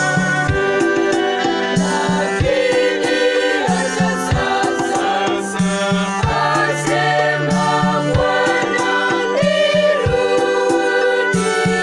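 Mixed choir singing a Swahili gospel song in parts, accompanied by an electronic organ playing held chords over a regular bass beat.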